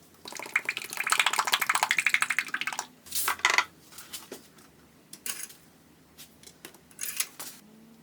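A fast, dense run of metallic clicking and clinking from hand tools at work on the car, lasting about two and a half seconds, followed by a few single clinks.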